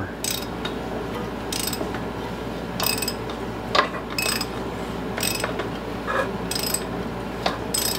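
A ratchet wrench clicking in short strokes, about once a second, as it turns over a freshly freed 14 hp lawn tractor engine by hand. A scraping sound comes from the engine as it turns, which is thought to be typical of just the compression pushing out of the open exhaust.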